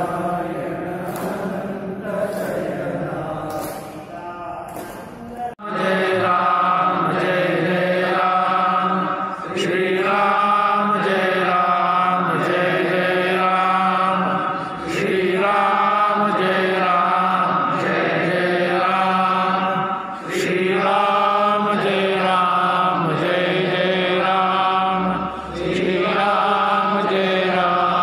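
Men chanting a devotional hymn together in long held phrases with short breaks between them, over a steady low drone. About five and a half seconds in there is an abrupt cut, after which the chanting is louder and closer.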